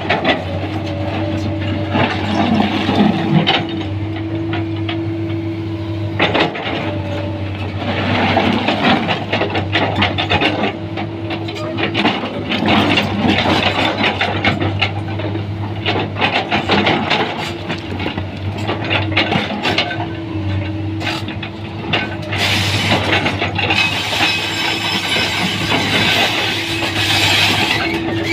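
Komatsu PC210 excavator's diesel engine running steadily, with frequent irregular metallic clanks and knocks over it.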